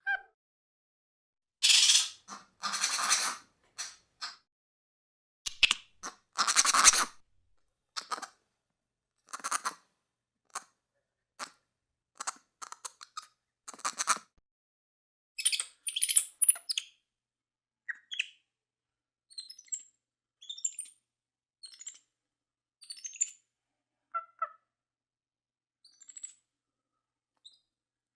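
Capuchin monkey calls: a series of short, separate calls with gaps between them, the first few loud, harsh screeches, followed by many brief, high-pitched chirps and squeaks.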